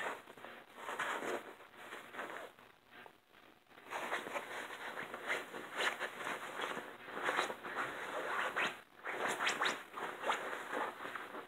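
A kitten and a chihuahua scuffling on a fabric cushion: irregular scratching and rustling of paws and claws on the cloth, with a short lull about three seconds in.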